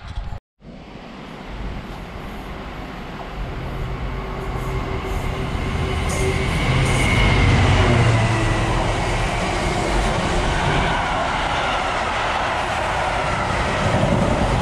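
Train passing through the station, its rumble growing louder as it approaches and at its loudest about eight seconds in.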